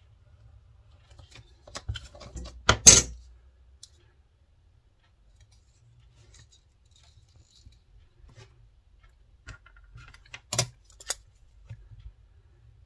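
Small metal tools and a metal binder clip handled on a cutting mat: a clatter about three seconds in, the loudest moment, as the steel tools are moved and set down, then a few sharp metallic clicks from the binder clip's wire handles near the end.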